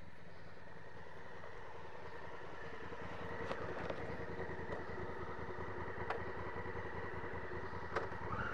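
Honda Africa Twin CRF1000L's parallel-twin engine running steadily at low revs as the bike rolls along a dirt track, with a few sharp ticks. The engine note rises near the end as the rider opens the throttle.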